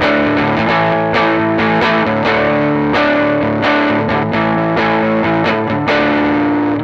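Fender Jaguar electric guitar played through a Dusky D₂O vacuum-tube amplifier and speaker cabinet, picking chords with notes ringing on between frequent attacks.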